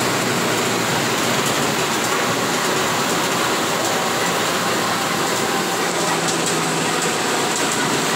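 Steady cabin noise inside a moving Mascarello Gran Via / Volksbus 17-230 OD city bus on a wet road: a constant hiss of tyres and wind with a low engine drone underneath.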